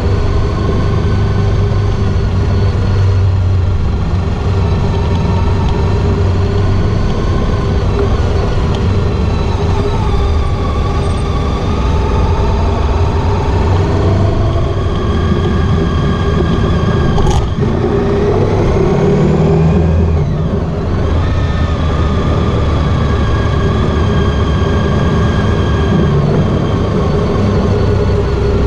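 Honda ST1300 Pan European's V4 engine running steadily under way, over constant road and wind rumble. Its pitch shifts slightly about two-thirds of the way through, and there is one sharp click about seventeen seconds in.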